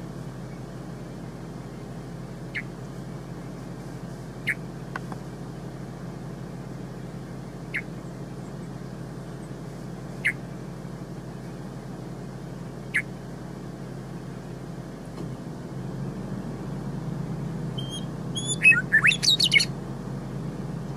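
Western meadowlark giving single short, sharp call notes every few seconds, then a brief burst of fast, tumbling song near the end, over a steady low background hum.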